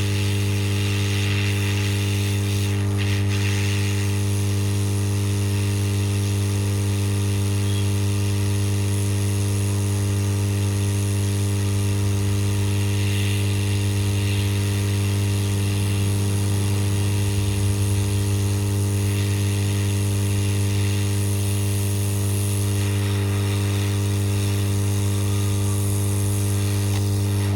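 SMD hot-air rework station blowing steadily with a constant low hum while it heats the solder holding a phone's charging jack to the board.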